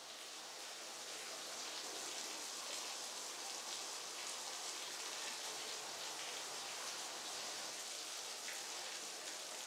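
Steady hiss of light rain, swelling slightly over the first couple of seconds and then holding even.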